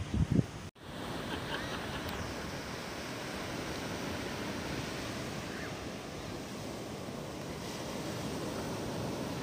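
Small waves breaking and washing up a sandy beach: a steady rush of surf, with wind on the microphone. A few low thumps open it, followed by a brief dropout.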